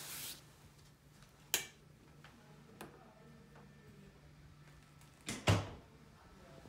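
Closet handling sounds over a faint steady hum: a sharp click about a second and a half in, a fainter one near three seconds, and a closet door shutting with a double thump about five and a half seconds in.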